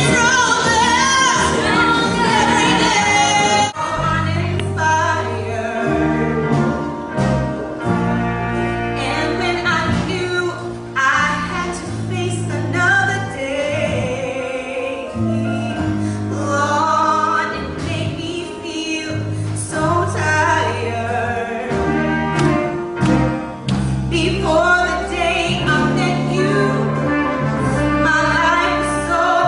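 A singer performing a soulful song with a backing track. The voice sings alone at first, then a bass line comes in about four seconds in.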